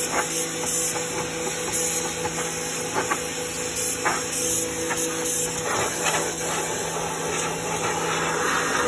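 Pressure washer spraying water onto a car's rusty frame rail and engine bay: a steady hiss of spray over a constant hum from the washer's pump, with a few light knocks. The hiss grows louder near the end.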